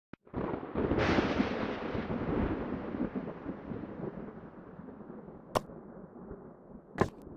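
A thunderclap that breaks about a second in and rumbles, slowly fading over several seconds, with two sharp cracks near the end.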